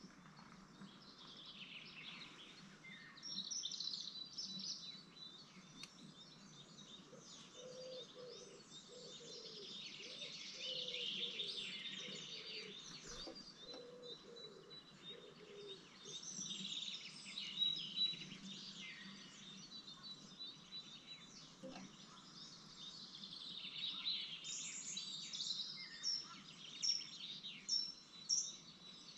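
Small birds chirping and calling in many short, high notes, heard from inside a nestbox, with a run of sharper, louder chirps near the end.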